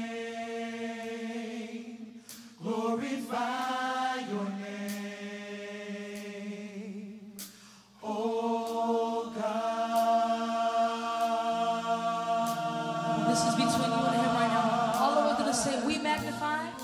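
Gospel worship singers hold long notes in harmony, softly and in slow phrases, with short breaks about two and eight seconds in.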